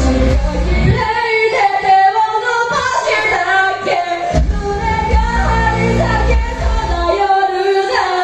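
Live pop music with female singing. The bass and drums drop out about a second in, come back a few seconds later, and drop out again near the end, leaving the voice over the upper part of the music.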